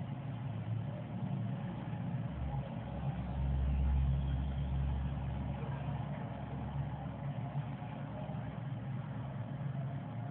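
Low steady rumble in the background, swelling deeper and louder from about two and a half seconds in for a few seconds, then settling back.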